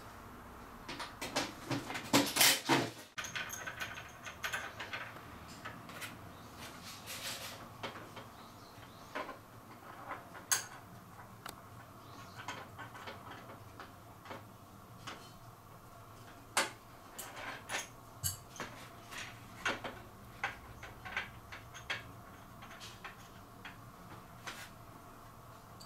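Irregular knocks, clicks and clattering from air conditioner installation work: tools and parts being handled. A run of louder knocks comes about two seconds in.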